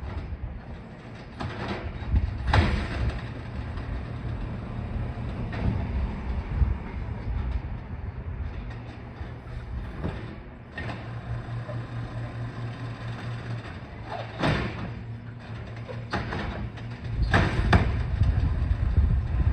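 Garbage truck engine running steadily, with several sharp bangs and knocks over it, the loudest group near the end.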